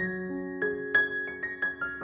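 Background music on piano: gentle single notes struck one after another, a few each second, each ringing on over the last.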